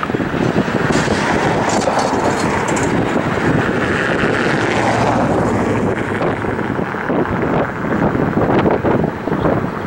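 Grand Trunk Western EMD GP38-2 diesel locomotive, its two-stroke V16 engine running, moving slowly at the head of loaded ballast gondolas. Wind buffets the microphone.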